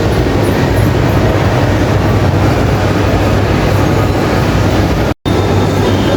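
Steady, loud rumble of a vehicle in motion; it drops out completely for a split second about five seconds in.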